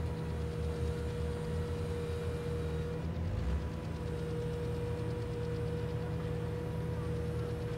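Diesel engines of a small site dumper and a backhoe loader idling steadily, with a thin, steady whine over the low engine note.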